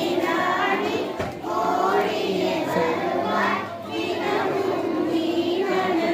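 A group of children singing together, a sung melody of long held notes in phrases with short breaks.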